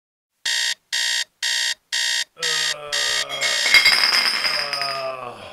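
Electronic alarm clock beeping, a run of about seven short beeps at two a second. About halfway through, a man's long drawn-out waking groan starts over the last beeps, its pitch slowly sinking and turning rough before it fades.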